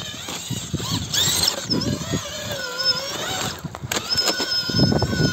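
Electric whine of an RC rock crawler's Holmes Hobbies Revolver V2 2500kv brushless motor, its pitch rising and falling with the throttle and then holding steady, over crunching of tyres on gravel and rock.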